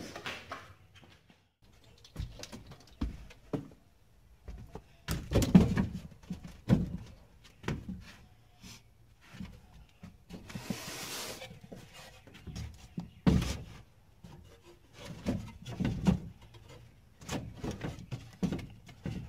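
Scattered knocks, thunks and handling noises in a small enclosed space, irregular and of varying strength, with a short rushing hiss about ten seconds in.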